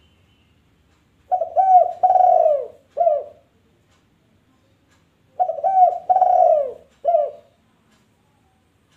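Dove cooing: two four-note phrases about four seconds apart, each with a longer third note.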